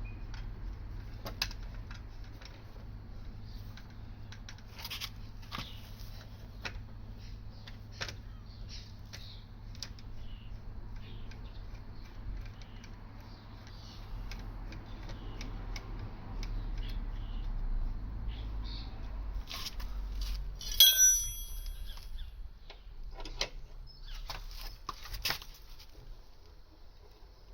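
Scattered metallic clicks and knocks of tools and a car jack being handled, with one sharp ringing clang of metal on metal about 21 seconds in.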